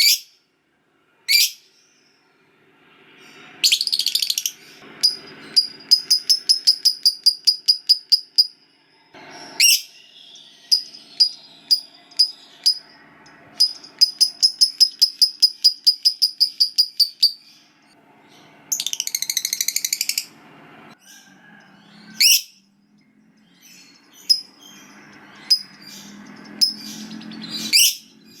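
Lovebirds calling: sharp single chirps and two long runs of rapid repeated high notes, about five a second. These runs are the extended chatter that keepers call 'ngekek panjang'. A harsh screechy burst comes about two-thirds of the way through.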